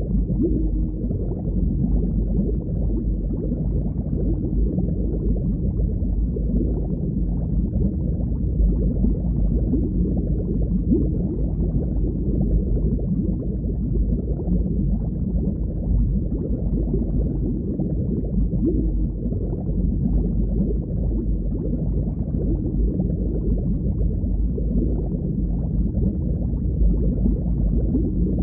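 Underwater ambience: a steady, low, muffled wash of water noise with no distinct events.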